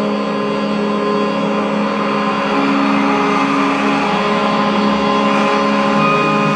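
Droning music of many held tones layered together, with single tones entering and dropping out along the way.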